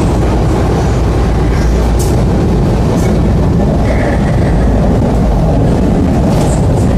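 Steady rumble of an MTR C-Train metro car under way, heard from inside the car, with a few light clicks.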